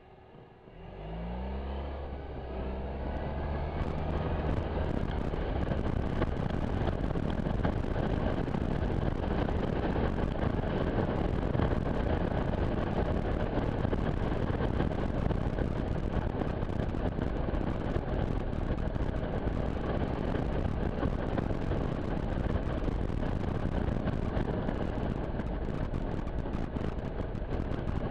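Suzuki Burgman 650 parallel-twin scooter engine pulling away about a second in, its pitch rising and then holding steady. From about four seconds, loud rushing wind noise on the microphone at road speed covers the engine.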